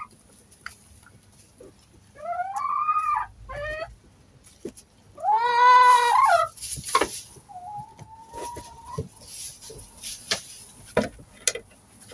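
Laying hens calling in a deep-litter coop: a few short rising calls, then a loud drawn-out squawk about halfway through, and a thin held note a little later, over small ticks of scratching and pecking in the straw.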